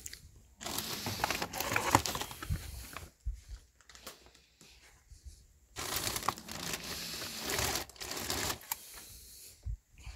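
Crinkling and rustling of handled material in two long bursts of a few seconds each, with small clicks in them.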